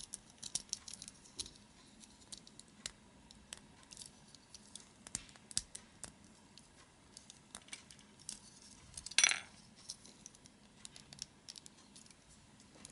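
Small clicks and scrapes of hard plastic Bandai MG Nu Gundam Ver.Ka kit parts being handled and pressed together by hand, with one louder, longer scrape about nine seconds in.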